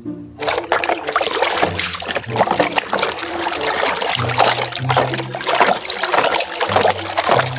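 Water sloshing and splashing in a plastic basin as a toy truck is rubbed and swished through it by hand, starting about half a second in.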